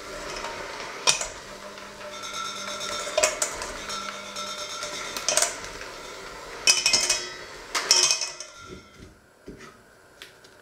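Electric hand mixer running in a crumbly dough, its beaters knocking and clattering against the stainless steel bowl every second or two. The motor stops about eight and a half seconds in, leaving only a few faint clicks.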